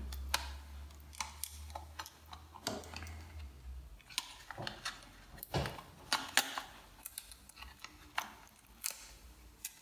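Scattered light clicks and taps of fingers and small plastic and metal parts as a board connector is worked loose inside an opened ThinkPad T460s laptop, over a faint low hum that stops about four seconds in.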